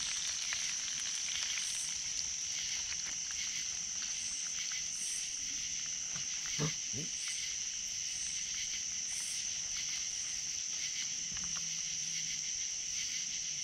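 A steady, high-pitched chorus of night insects calling, with fainter repeated higher notes over it. A short low sound stands out about halfway through.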